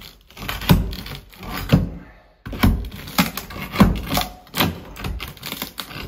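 A steel shovel scraping and scooping broken concrete rubble, with chunks clattering in irregular strokes about once a second and a short lull about two seconds in.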